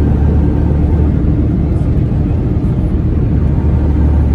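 Steady low rumble of engine and road noise heard inside a moving bus.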